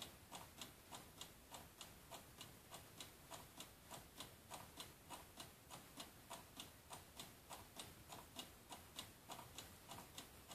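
Faint, even ticking of a clock, about three ticks a second.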